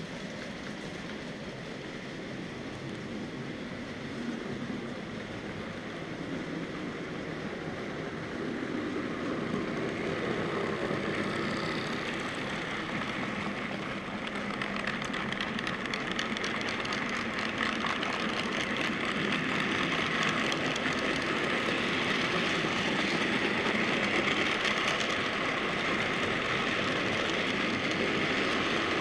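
Model freight train rolling past close by: the wagons' small metal wheels run on the rails with a steady rattle and rapid clicking, growing louder through the first half as the train nears.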